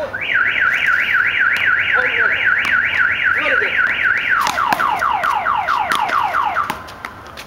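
Car alarm siren cycling through its tones. A few seconds of rapid rising whoops, about five a second, give way to a run of quick falling sweeps, which stop shortly before the end.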